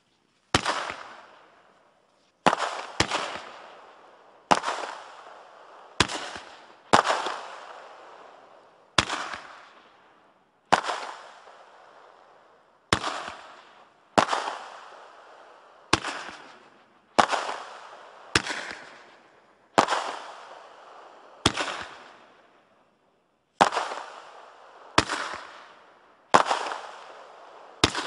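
Rocket Fireworks' Warhead Launcher, a 12-shot consumer fireworks cake, firing peony shells. Sharp bangs come every one to two seconds, each dying away over a second or more.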